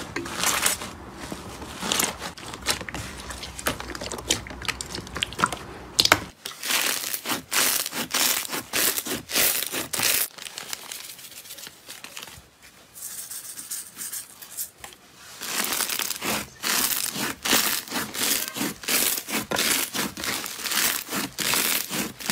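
Hands squeezing, stretching and pressing slime: quick runs of sticky crackling, tearing and popping. About six seconds in it changes to a different slime, with a quieter stretch in the middle and dense crunchy crackling near the end as foam-bead slime is pressed.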